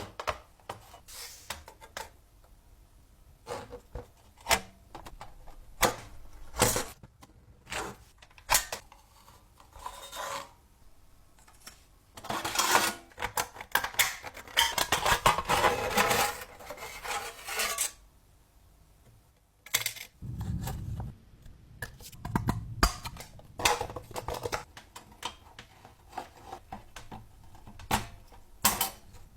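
Hands working on the metal parts of a vintage film projector: irregular clicks, clinks and knocks of tools and parts, with a few seconds of dense scraping noise about halfway through and some dull thuds after it.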